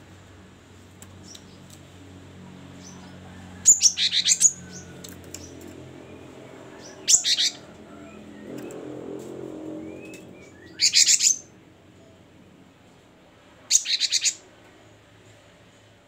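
Cinereous tit (gelatik batu) singing: four short, loud phrases of rapid high notes, each about half a second long, coming roughly every three seconds.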